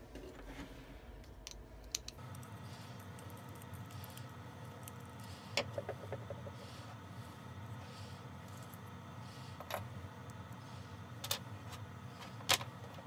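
A handful of sharp clicks and small rattles, a few seconds apart, from the small plastic inline rotary switch on a wax warmer's power cord being handled and taken apart by hand. Under them runs a faint steady hum.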